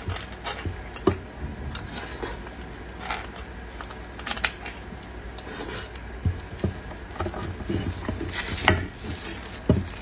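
Eating beef bone marrow: irregular scraping and rubbing with sharp clicks and taps of bone and utensils, the loudest clicks about a second in and twice near the end.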